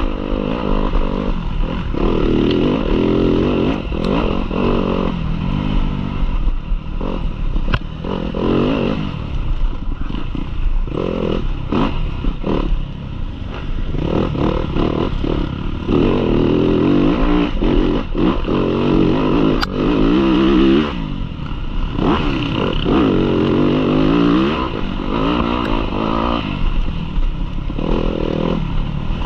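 Yamaha dirt bike engine racing off-road, revving up and easing off again and again with each stretch of track, with knocks and clatter from the bike over rough ground.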